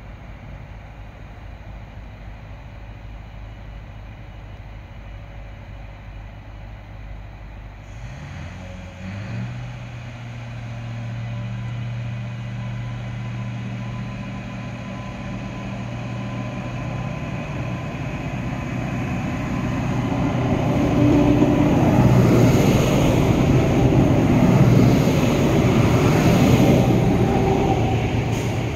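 3000 class diesel multiple unit's engine running with a low steady drone, then throttling up about eight seconds in as the train pulls away. Engine and wheel noise grow steadily louder as the train comes past, loudest over the last several seconds.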